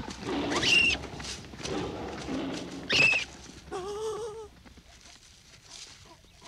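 Cartoon chase sound effects: a short, sharp high-pitched squeal about a second in and another about three seconds in, with rushing noise around them. A brief startled vocal cry from a gazelle character comes around four seconds, then only faint ticks.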